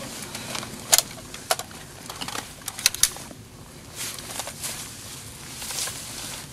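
Rifles being handled: a few sharp mechanical clicks and clacks, one about a second in, another half a second later and a quick pair around three seconds in, over rustling of clothing and dry leaves.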